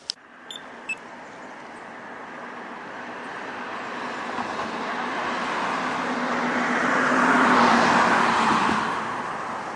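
A car approaching and passing close by, its engine and tyre noise swelling to a peak about eight seconds in and then fading. A few small clicks come at the very start.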